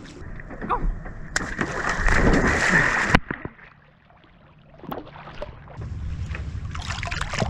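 Lake water splashing and sloshing right against a camera held at the water's surface. The splashing is loudest for a couple of seconds, cuts off suddenly a little past three seconds in, and goes quiet for about a second before lapping water and wind noise build again.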